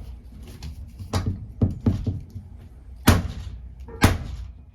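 Hammer blows on a manual impact screwdriver, driving it to break loose a corroded, stripped screw. The strikes come irregularly: lighter knocks about one and two seconds in, then two hard blows about three and four seconds in.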